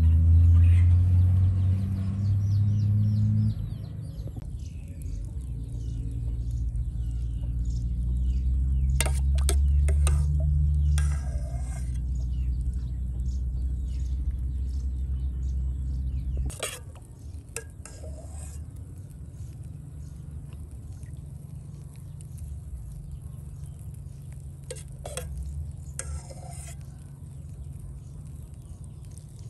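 Cooking-utensil sounds: stirring with scattered clinks and knocks against a bowl or pot. A low steady rumble sits under the first half and cuts off suddenly about halfway through.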